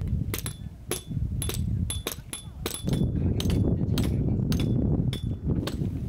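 A hammer striking metal tent pegs, about three sharp clinks a second, each with a short high ring. Wind buffets the microphone underneath.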